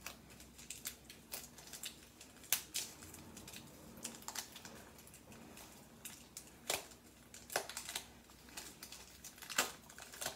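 Faint, irregular clicks, taps and scratches of hands working at toy packaging to free the cards inside, with a few sharper snaps scattered through.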